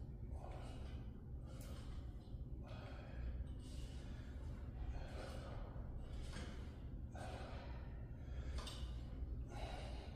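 A man breathing hard through a set of Bulgarian split squats, a loud breath about every second, over a steady low hum.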